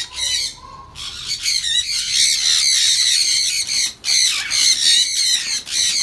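Grey parrot squawking loudly and harshly, call after call in rapid succession, with a short pause just after the start and another about four seconds in.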